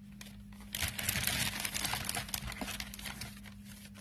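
Packaging crinkling and rustling as it is handled, starting about a second in and fading out near the end.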